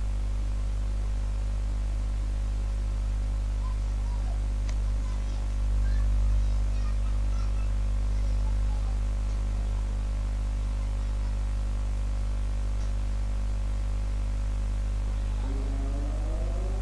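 Steady low electrical mains hum with faint static hiss. Near the end a faint rising pitched tone begins.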